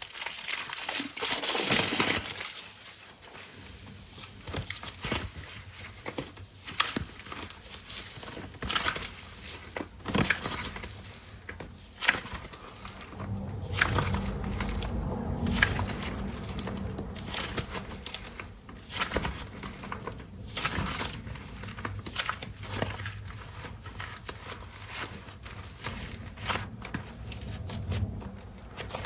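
Plastic packaging of air-dry clay crinkling and crackling as it is handled, loudest in the first two seconds, then scattered sharp crackles and clicks, with a low hum coming in about halfway.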